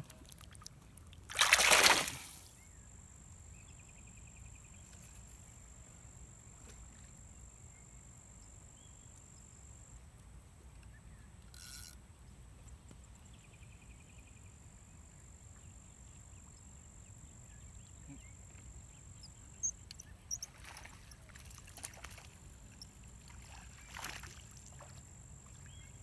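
A small channel catfish released into the river shallows, landing with a short splash about two seconds in. Afterwards a quiet outdoor background with a thin steady high tone and a few faint clicks near the end.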